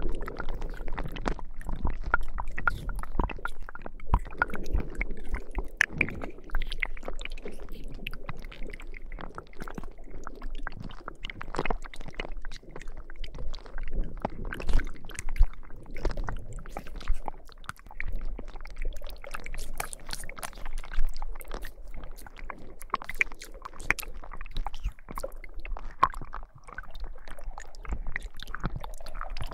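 Slime being squished and kneaded close to the microphone: an unbroken stream of wet squelches, pops and small clicks.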